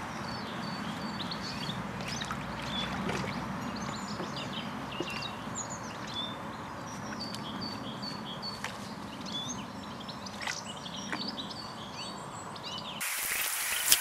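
Small birds chirping and singing in short repeated calls. About a second before the end, water starts splashing and rushing loudly as a pond net is dragged through the leaf-choked pond.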